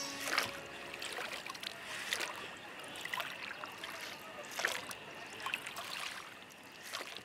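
Water lapping and splashing around boats, with small irregular splashes and knocks scattered throughout.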